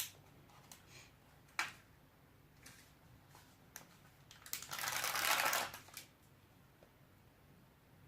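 Craft materials being handled at the work table: a few light clicks and taps, then a rustle lasting just over a second about halfway through.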